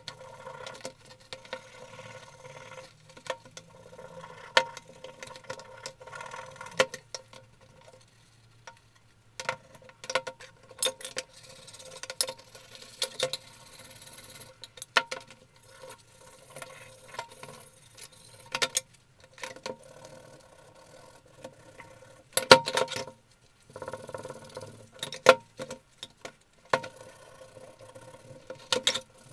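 Irregular clicks, knocks and scrapes of the rusty steel and cast-iron parts of an old Venusberg breast drill being picked up, turned over and set down in a plastic tub, with a tight run of louder knocks about two-thirds of the way through. A faint steady hum lies underneath.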